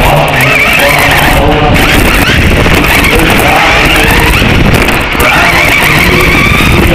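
Onboard sound of a Team Associated SC10 electric short course RC truck racing: a whine from the motor and gears that rises and falls with the throttle, over a loud, steady rumble and rattle from the chassis and tyres on the track.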